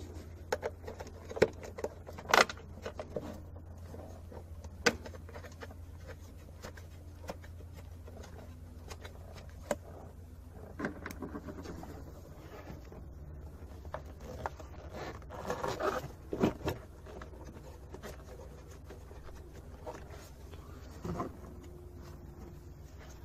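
Scattered sharp clicks and knocks of tools and parts being handled in a car's engine bay, with a burst of scraping around the middle, over a steady low hum.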